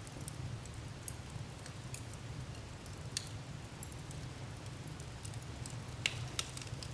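Wood fire crackling in a fireplace: scattered sharp pops and snaps over a steady low rumble of the flames, with a louder pop about three seconds in and two more near the end.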